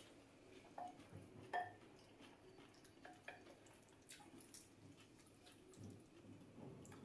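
Near silence, with a few faint taps and scrapes of a wooden spoon working a wet mixture of chopped raw steak in a glass bowl.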